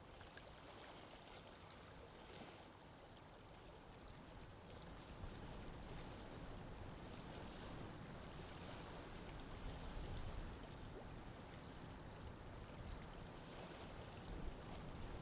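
Quiet lake water sounds: gentle lapping and flowing water, with a low rumble swelling toward the end.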